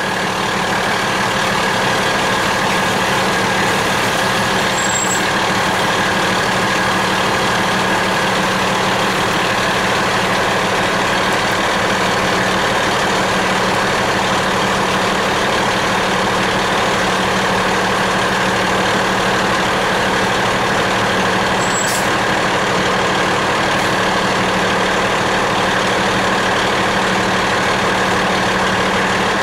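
Fire truck engine running steadily while the truck rolls slowly, heard from inside the cab. A single sharp click comes about three quarters of the way through.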